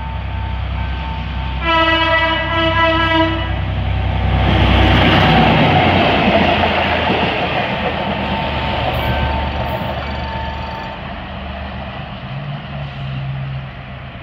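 EMD GR12 diesel-electric locomotive sounding its horn in two blasts as it nears the level crossing: the first ends about a second in, the second lasts nearly two seconds. The train then passes close by, engine and steel wheels on the rails loudest around five seconds in, and the sound fades as it draws away.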